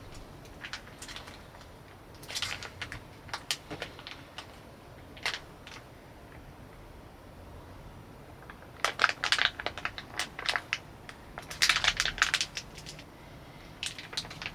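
Irregular bursts of crackling and crinkling handling noise, in short clusters, with the densest runs in the second half.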